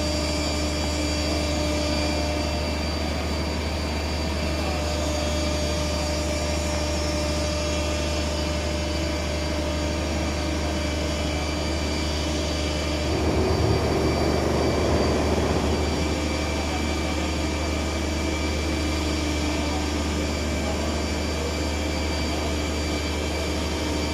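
Steady mechanical hum of the hydraulic power driving a Boeing 747-200's body landing gear swing test. About thirteen seconds in, a louder rushing surge lasts some three seconds as the body gear doors move.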